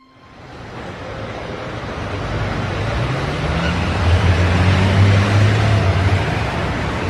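A car driving: engine and road noise grow louder over the first few seconds, with a low hum and an engine note that rises in pitch near the middle.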